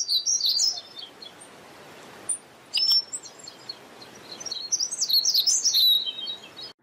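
Birds chirping over a steady background hiss of outdoor ambience, in bouts: at the start, briefly around three seconds in, and again from about four and a half to six seconds. It cuts off abruptly at the end.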